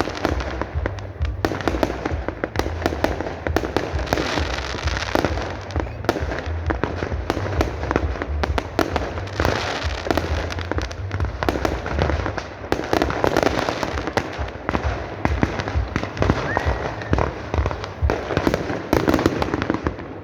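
Fireworks display: a dense, continuous run of bangs, pops and crackling shell bursts, with music playing underneath.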